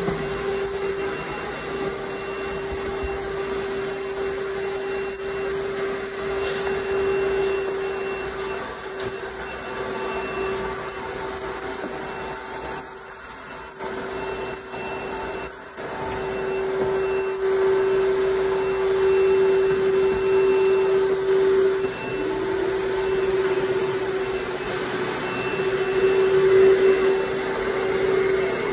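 Pressure washer running with a steady whine and a hiss of spray, dropping away briefly twice about halfway through.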